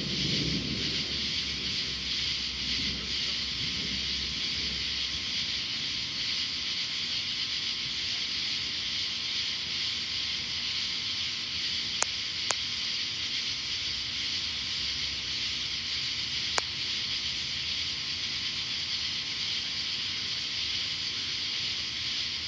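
Steady high hiss of night-time outdoor air during a thunderstorm, with a faint very high pulse repeating about once a second. A faint low rumble fades out over the first few seconds, and three sharp clicks come near the middle.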